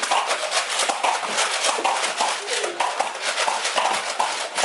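A rapid, uneven clatter of sharp clicks and knocks, several a second, with voices mixed in: foam-dart blasters firing and darts striking during a Nerf dart battle.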